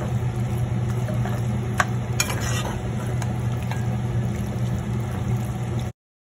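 A utensil stirring fettuccine in creamy Alfredo sauce in a hot pan, the sauce sizzling, with a few light clicks against the pan over a steady low hum. The sound cuts off suddenly near the end.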